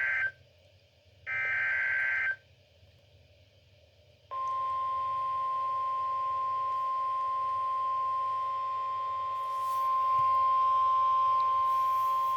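NOAA Weather Radio Emergency Alert System signal: the end of one SAME digital header burst, then a full burst about a second later, a harsh warbling data screech. About four seconds in, the steady single-pitch NOAA warning alarm tone begins, which signals that a warning such as this severe thunderstorm warning is about to be read.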